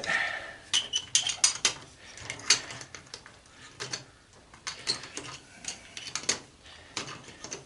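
Scattered, irregular metallic clicks and clinks of hand tools and small metal parts being handled while an antenna rotator is taken apart.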